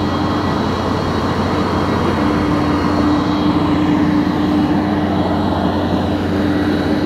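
Radio-controlled Huina 1552 toy wheel loader driving and pushing dirt: its small electric drive motors and gearbox whine steadily, the whine breaking off briefly about two seconds in.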